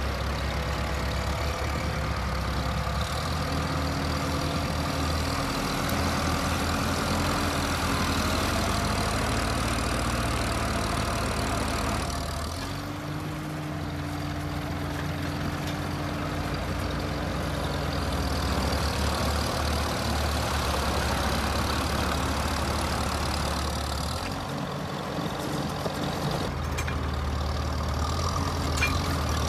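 Engines of two old farm tractors running under load as they pull against each other on chains. The engine note shifts about twelve seconds in and again near twenty-five seconds.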